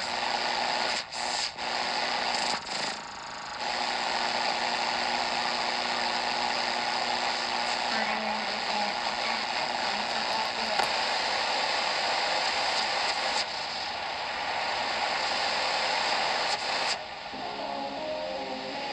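Philips D1835 Compass shortwave radio hissing with static between stations as the band is scanned, the noise cutting out briefly a few times near the start. About seventeen seconds in the hiss drops away and a station's audio comes faintly through.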